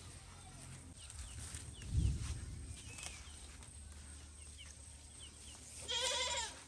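Rustling of cassava leaves and stems as they are picked by hand, with a dull thump about two seconds in. Small birds chirp in short calls throughout, and a short wavering animal call sounds near the end.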